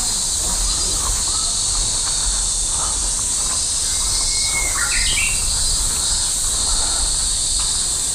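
A steady, high-pitched insect chorus in summer woodland, with a bird calling in short notes that step up in pitch about halfway through.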